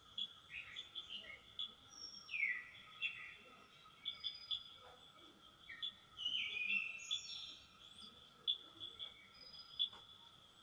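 Several wild birds chirping and calling in short notes and downward-sliding phrases, the loudest about two and a half and six and a half seconds in, over a steady high-pitched insect drone.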